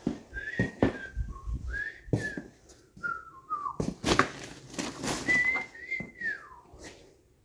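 A person whistling a tune of short notes that slide up and down, over knocks and clatter of objects being handled. The whistling ends with a falling slide near the end.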